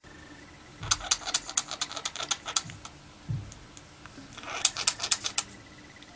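Budgerigar coughing: two bouts of quick, sharp clicks, about a second in and again a little past four seconds.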